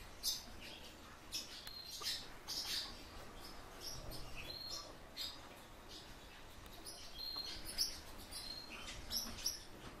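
Small pet bird giving short, high chirps scattered through, with faint clicks in between.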